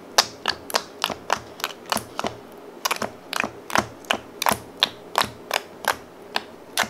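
Fingertips poking and pressing clear PVA-glue slime in a plastic tub, making a quick run of sharp sticky clicks and pops, about three a second.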